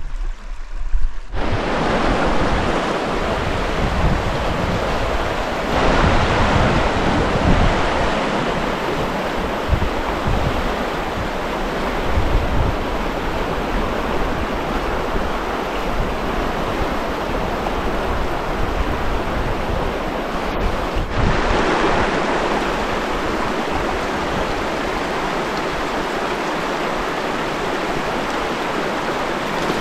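River water rushing past in a steady, loud rush of noise, with some low gusty rumble. The sound jumps abruptly a few times, at about 1, 6 and 21 seconds in, where clips are cut together.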